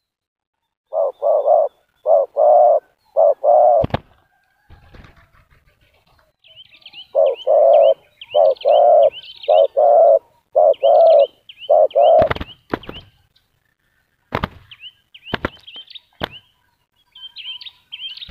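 Spotted doves cooing: two runs of loud, low, paired coos, the second run longer. Small birds chirp high above them from midway on. Several sharp claps and wing flapping come in the second half.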